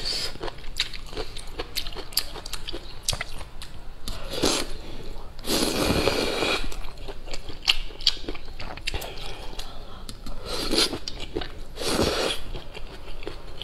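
A person slurping noodles and broth, with wet chewing and lip-smacking clicks throughout. There is a long slurp about halfway through and shorter slurps near the end.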